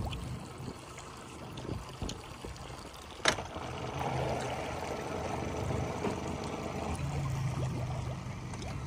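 An engine idling with a steady low hum, with a single sharp knock about three seconds in.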